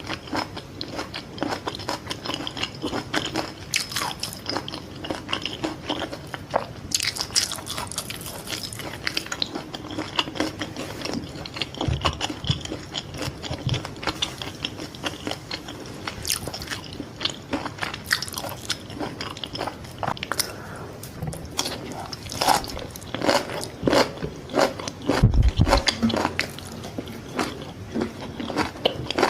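Close-miked eating of Vietnamese fried fish balls: repeated bites and wet chewing with crisp crunching of the fried crust.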